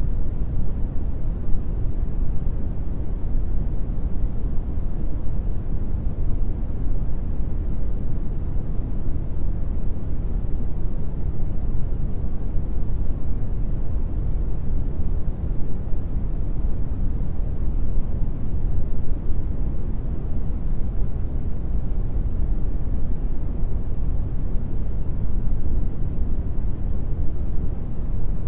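Brown noise: a steady, even rumbling hiss, strongest in the bass and fading toward the treble, with no change in level.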